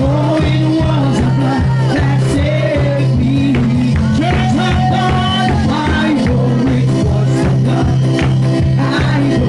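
Loud live worship music with a steady beat, drums and bass, and a sung melody line over it.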